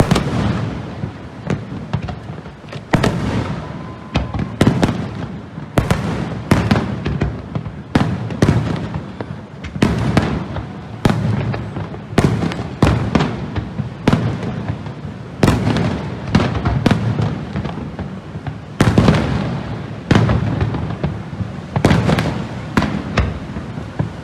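Fireworks display: aerial shells bursting in rapid, overlapping volleys, sharp bangs followed by rumbling echoes, several a second.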